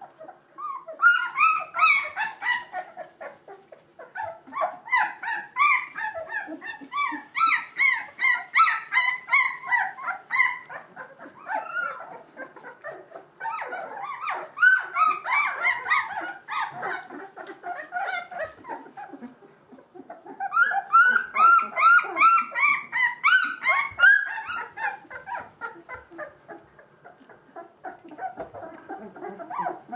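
Two-week-old Gordon Setter puppies whimpering and squeaking: many short, high calls that rise and fall in pitch, coming in quick runs with brief lulls between, quieter near the end.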